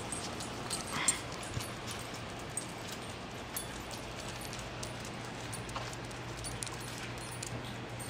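A dog gives a short whimper about a second in, over a low steady hum, followed by a few faint clicks.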